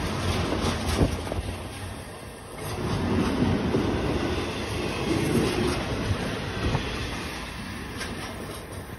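Double-stack intermodal well cars rolling past, with their steel wheels running on the rails and a few sharp knocks as they cross rail joints. The noise dips briefly about two seconds in, then swells again.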